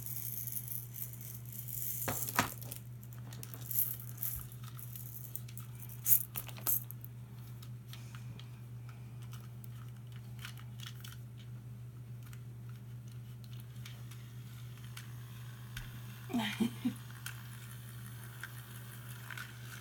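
Small hard plastic and die-cast toys being handled and turned over: scattered clicks and light rattles, the sharpest about six seconds in, over a steady low hum.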